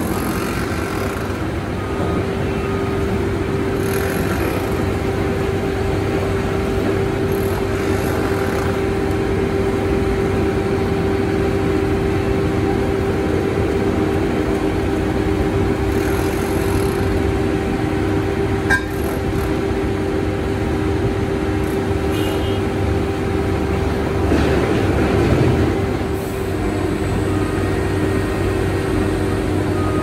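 Heavy construction machinery running with road traffic going past: a steady engine hum over a traffic rumble. The hum drops in pitch near the end, and there is a single sharp clack near the middle.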